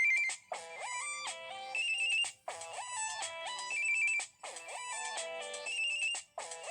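Samsung SPH-M390 (Montage/Array) cell phone ringtone playing: a short melody with a high, quickly repeated figure on top, looping about every two seconds with a brief gap between each repeat.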